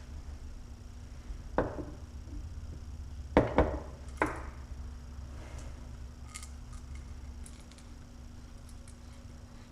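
Sharp knocks and clinks of metal parts and hand tools being handled: one about a second and a half in, a quick pair a little later and another just after, then faint light ticks, over a low steady hum.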